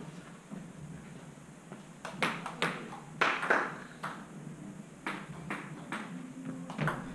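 Table tennis rally: the ball clicks sharply off bats and table, a run of quick ticks often in close pairs, starting about two seconds in.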